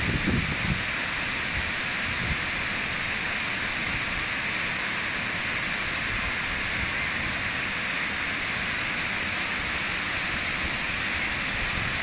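Waterfall's steady rush of falling water, an even hiss that holds unchanged throughout.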